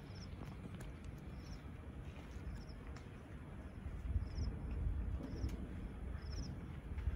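Short high-pitched chirps from a small animal, repeating about once a second, over a low rumbling noise that grows louder about four seconds in.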